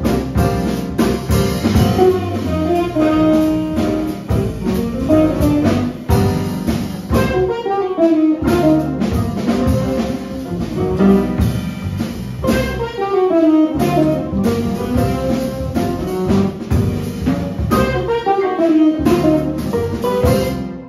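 Small jazz band playing live: saxophone, archtop electric guitar, piano, upright bass and drum kit, with fast falling melodic runs every few seconds.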